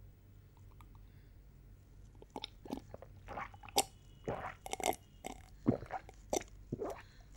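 A person drinking in noisy gulps and swallows. After about two seconds of low hum, a quick irregular run of about a dozen short mouth sounds follows.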